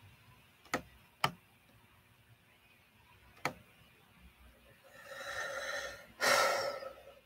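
Three short sharp clicks, then two noisy breaths close to the microphone, the second, near the end, the loudest and snort-like.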